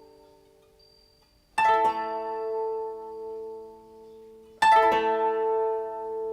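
Koto played slowly: a ringing chord dies away into a brief hush, then two plucked chords about three seconds apart, each rolled over a few strings and left to ring.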